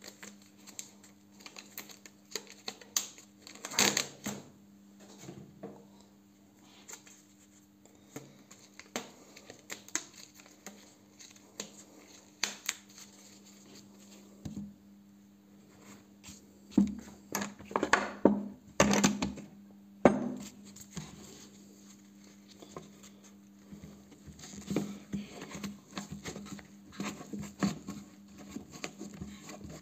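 Hands handling a steel bolt in padded wraps while gripping it to bend it: irregular rustling, crinkling and small taps, with a run of louder knocks and rustles about two-thirds of the way through. A faint steady low hum lies underneath.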